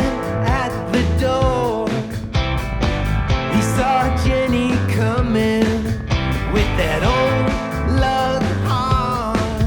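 Rock band playing live, an instrumental passage: drums, bass and electric guitar, with lead lines that bend up and down in pitch.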